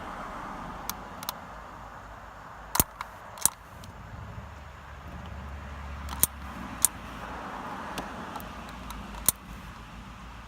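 Irregular sharp clicks and taps of a tool working on the plastic surround of a Mazda 5 dashboard air vent, over a steady background hiss.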